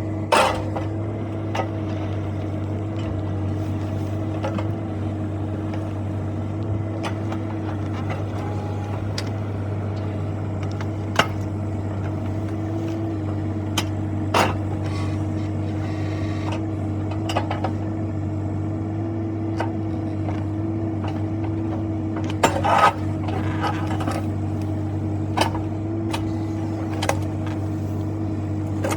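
Bobcat E26 mini excavator's diesel engine running steadily at working speed, with scattered knocks and clanks throughout and a short cluster of them near the end.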